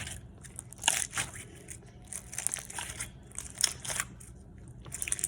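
Slime being squeezed and worked in the hands, making irregular wet crackles and squelches.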